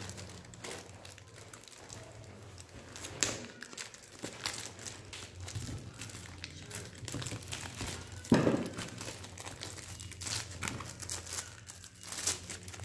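Clear plastic packaging bag around a mouse box being handled and pulled open by hand: irregular crinkling and crackling of the plastic, with one sharper thump about eight seconds in.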